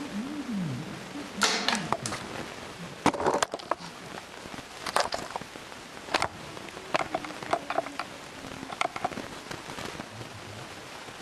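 A GoPro camera falling to the bottom of a deep well shaft, about 140 ft deep, heard from the camera itself. A wavering sliding tone in the first second is followed by a scattered series of sharp knocks and clatters as the camera settles and the loose string falls down the shaft onto it.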